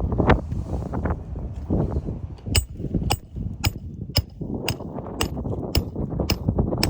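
Hammer striking a metal roof snake tool, nine sharp ringing blows at a steady pace of about two a second, starting a few seconds in. Wind rushes over the microphone before the blows begin.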